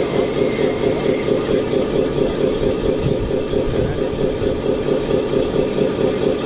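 Radio-controlled hydraulic dump truck running while its tipper bed is raised to dump a load of soil: a steady, pulsing engine-like drone.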